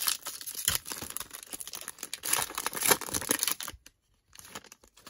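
Foil wrapper of a 2021 Panini Select football card pack being torn open and pulled apart, a dense crinkling and tearing rustle that stops about three and a half seconds in.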